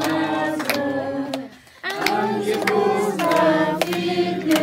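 A group of adults and children singing a birthday song together in long held notes, with scattered hand claps. The singing breaks off briefly about a second and a half in.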